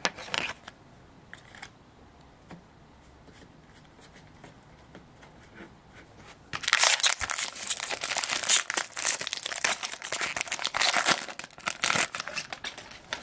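Foil trading-card pack wrapper being torn open and crinkled, a dense crackling that starts about halfway in and lasts about five seconds. Before it there are only faint handling sounds.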